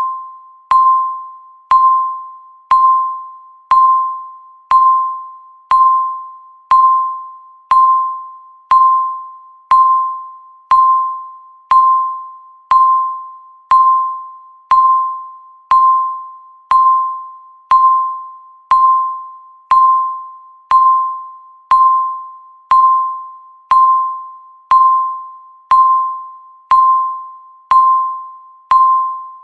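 Countdown timer beep: a single pure electronic tone once a second, each starting sharply and fading away before the next, counting off the seconds.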